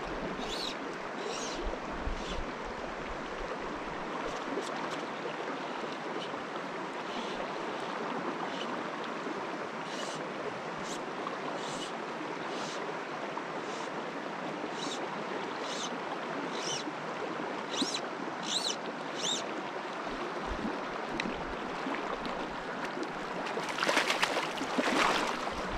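Shallow mountain stream running steadily over rocks, with a splash at the surface close by near the end, likely a hooked trout thrashing.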